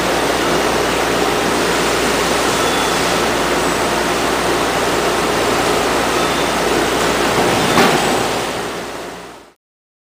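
Steady rushing machine noise of a robot-loaded CNC tool grinding cell, with one short click about eight seconds in; the noise then fades out to silence.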